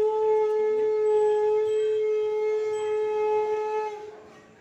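A conch shell (shankha) blown in one long, steady note that fades out about four seconds in.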